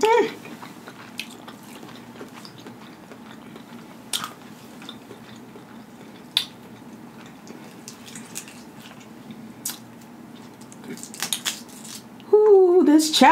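Snow crab leg shells cracking and snapping in the hands, a few separate sharp clicks over quiet chewing. Near the end a woman starts singing.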